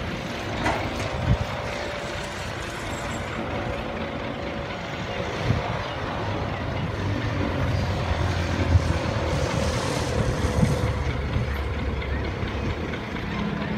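A distant engine running, its tone sinking slowly over about ten seconds, with low rumble that grows heavier midway and a few faint knocks.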